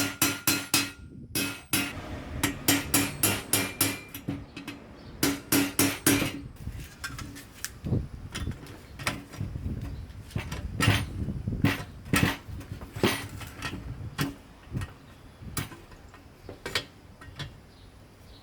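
Hammer tapping on metal while rusty exhaust screws are freed: quick runs of sharp ringing taps, about five a second, then slower single blows about a second apart.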